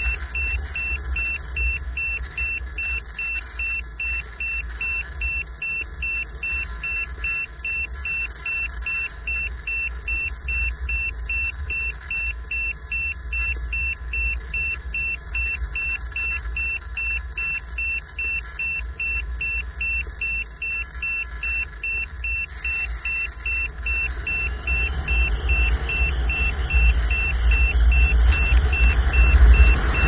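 Onboard audio of a radio-controlled model airplane in flight: wind buffeting the camera's microphone as a deep steady rumble, with a high whine that pulses rapidly. The rush grows louder over the last few seconds.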